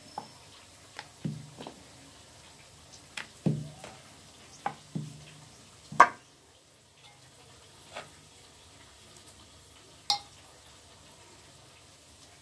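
Wooden rolling pin knocking and rolling on a wooden board (chakla) as a small round of wheat dough is rolled out, a scattering of light, irregular knocks. The sharpest clack, about six seconds in, comes as the pin is set down in a steel bowl.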